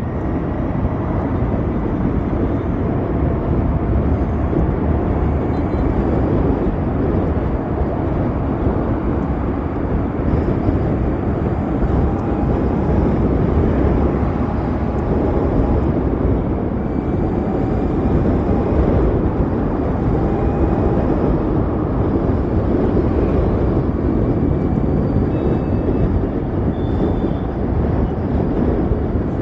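Wind and road noise rush steadily over the microphone while an Ather 450X electric scooter is ridden at speed in traffic, with a faint thin whine running through it.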